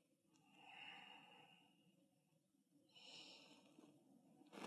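Near silence with a woman's slow, faint breaths: one breath about a second in and another about three seconds in.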